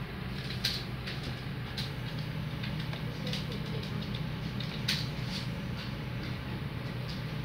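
A steady low hum with a scattering of sharp clicks, the loudest about two-thirds of a second and five seconds in.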